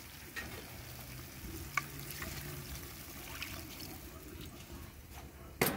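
Water poured from a measuring jug into a hot kadai of masala-coated chicken, sizzling quietly as it hits the pan, with a few faint clicks.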